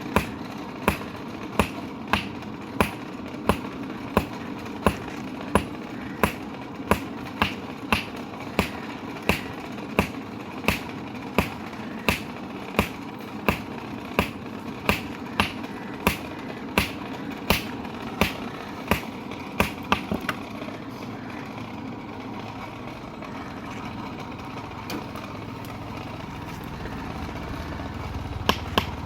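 Blacksmith's hammer striking hot metal on an anvil in a steady rhythm, about one and a half blows a second, each with a short metallic ring. The blows stop about two-thirds of the way through and resume briefly near the end, over a steady low hum.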